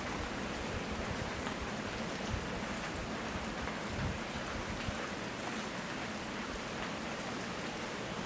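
Steady rainfall, an even hiss of drops hitting surfaces, with a couple of soft low bumps along the way.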